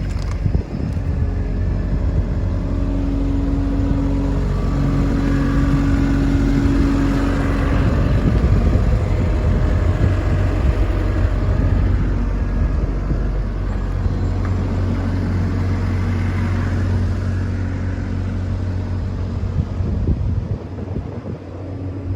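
Komatsu PC160LC hydraulic excavator's diesel engine running steadily, a continuous low hum, with a steady higher-pitched whine for a few seconds in the first half.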